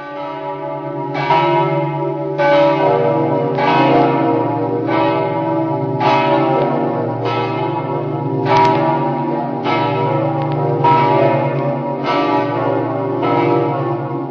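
Church bells swinging and ringing in a bell tower, a strike about every second and a quarter, the hum of each stroke carrying on under the next.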